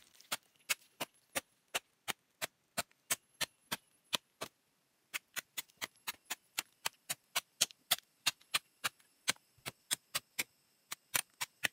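Machete blade striking a cu li fern (Cibotium barometz) rhizome again and again, chopping away its hairy outer layer. The chops come sharp and even, about three a second, with a short pause about four and a half seconds in.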